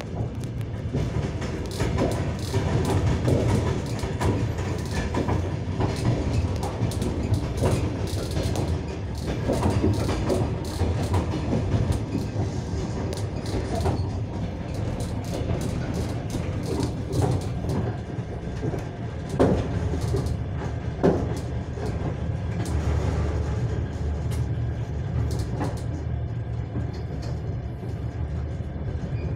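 Trains running side by side, heard from inside a passenger carriage: a steady low rumble of wheels on rails, with many short wheel clicks over rail joints and two sharper knocks near the two-thirds mark.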